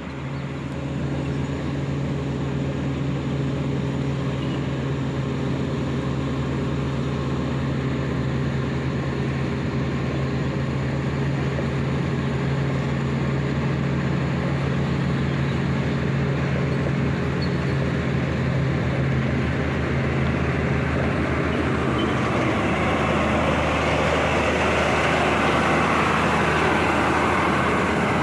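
Diesel engine of heavy road-construction machinery running steadily. About 22 seconds in its note changes and a louder rushing noise builds up.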